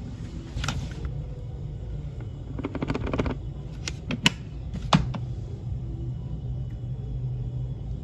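A vacuum's clear plastic dust cup being handled and emptied onto carpet. About three seconds in there is a quick run of crackling clicks, then a few sharp knocks around four and five seconds, the last ones the loudest. A low steady rumble runs underneath.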